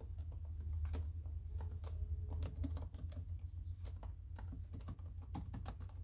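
Keys of a computer keyboard being typed in quick, irregular clicks while a diskpart command is entered, over a steady low hum.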